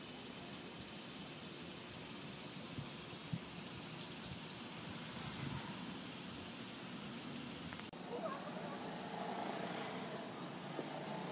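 Steady high-pitched drone of an insect chorus in the trees, dropping suddenly to a lower level about eight seconds in.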